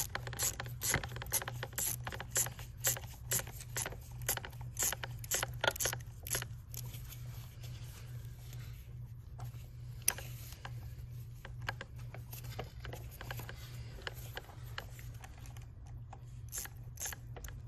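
Hand tool working fasteners loose on a Mini Miller drain machine's cable drive assembly: a run of quick metallic clicks, about two or three a second, thinning out after about seven seconds. A steady low hum runs underneath.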